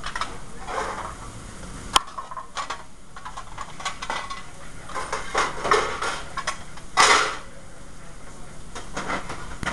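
Restaurant kitchen line clatter: pans, plates and utensils knocking and scraping as cooks work, with a sharp click about two seconds in and a louder burst of noise about seven seconds in.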